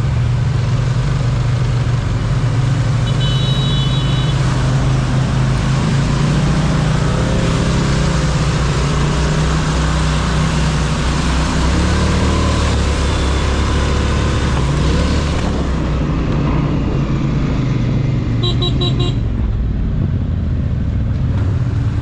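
Polaris Scrambler XP 1000 S ATV engine running steadily under load on a dirt trail, its pitch rising and falling with the throttle. A vehicle horn beeps briefly about three seconds in, then gives a quick series of beeps near the end.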